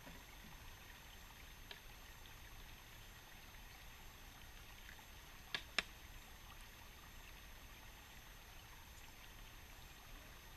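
Faint, steady trickle of a shallow rocky creek, with two sharp clicks in quick succession a little past halfway.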